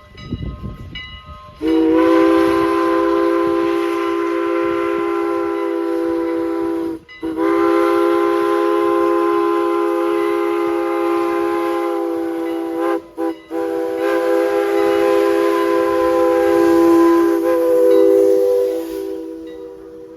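Steam whistle of 1910 CLC-built 2-6-0 Mogul locomotive No. 89 blowing a chord of several notes in the grade-crossing pattern: long, long, short, long. The last long blast trails off near the end.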